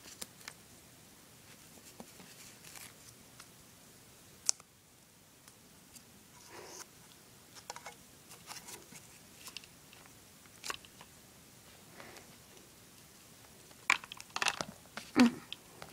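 Hands handling small plastic toy figures and a scrap of paper on carpet: scattered light taps, clicks and paper rustles, with a sharp click about four and a half seconds in and a cluster of louder handling noises near the end.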